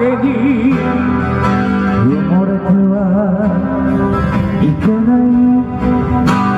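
Live music: a man singing with vibrato over guitar accompaniment.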